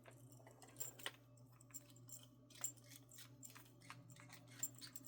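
Near silence: faint, irregular small clicks over a low steady hum.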